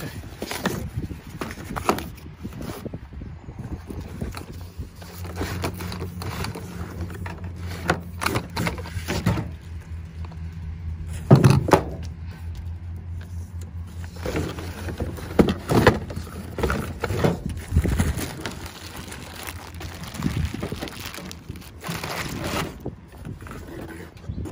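Handling noise of tool parts and cardboard packaging: irregular knocks, scrapes and rustles, with wind on the microphone. A steady low hum runs underneath for about ten seconds in the middle.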